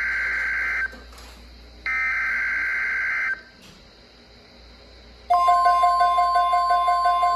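Emergency Alert System SAME header: two harsh digital data bursts about a second and a half long, a second apart, ending the three-times-repeated header of a severe thunderstorm watch. About two seconds later a steady two-tone alert signal starts and holds.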